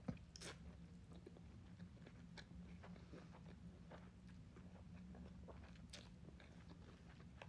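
Faint chewing and mouth sounds of someone eating ramen, with scattered short clicks, the sharpest just at the start, over a low steady hum.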